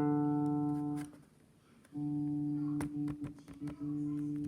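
Electric guitar chord played through a Line 6 Helix, held and cut off abruptly about a second in by an optical kill switch. It comes back on the same ringing chord about a second later, stuttering briefly a few times as the switch's light beam is interrupted.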